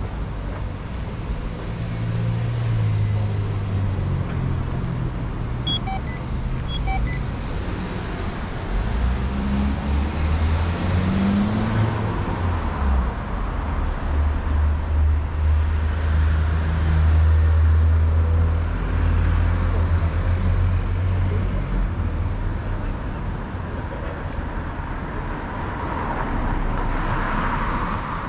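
City street traffic: car engines running close by and passing, a low rumble that swells and fades, loudest around the middle.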